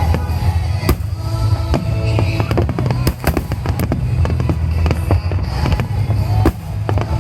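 Fireworks exploding in quick succession: many sharp bangs and crackles over a continuous low rumble, with music playing along.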